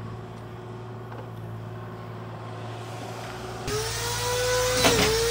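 A steady low machine hum, then, after an abrupt change about three and a half seconds in, a drywall screw gun running continuously with a steady whine. Its pitch dips twice, about a second apart, as it drives screws into sheetrock.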